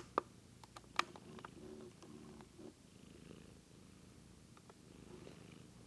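Russian White domestic cat purring steadily and faintly, with two sharp clicks in the first second.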